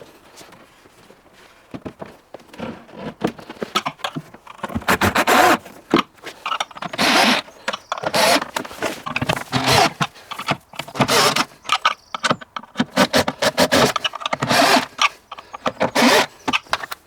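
Timber cabinet sections of a camper van kitchen unit being handled and fitted together: irregular scrapes and knocks of wood on wood, starting about two seconds in.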